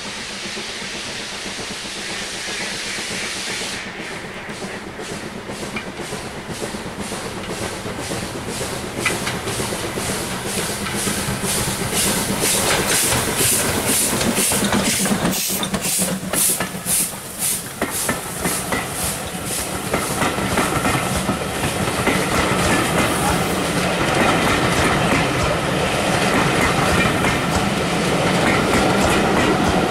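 LMS Ivatt Class 4 2-6-0 steam locomotive working hard as it passes, its two-cylinder exhaust beating in a steady rhythm with the hiss of steam, growing louder as it nears. In the second half the beats give way to the clatter of the coaches' wheels over the rail joints as the train rolls by.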